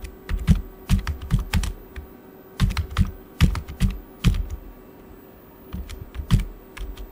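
Typing on a computer keyboard: short runs of quick key clicks with pauses of about a second between them.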